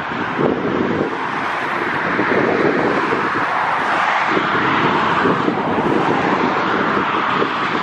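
Jet engines of an Airbus A320-family airliner landing, a steady rushing roar that grows slightly over the first couple of seconds, with gusty wind buffeting the microphone throughout.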